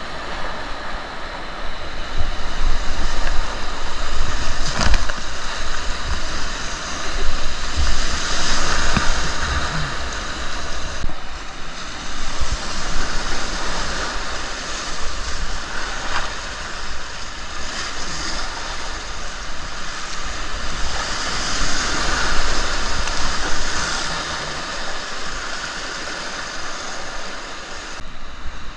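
Rushing river water, surging louder and softer every few seconds, with wind rumbling on the microphone.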